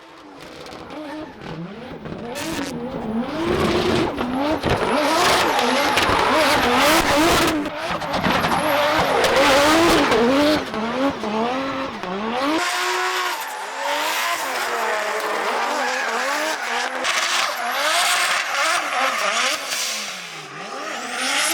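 Ford Barra inline-six drift car revving hard, its pitch rising and falling over and over as it is worked on and off the throttle, with tyre squeal. It grows louder over the first few seconds as the car comes closer.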